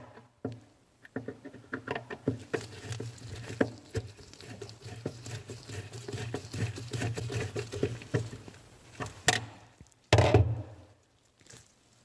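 Mounting screws of a replacement GE ice maker being tightened with a nut driver: irregular small clicks, ticks and scraping of the driver and plastic housing against the freezer wall, with a louder thump about ten seconds in.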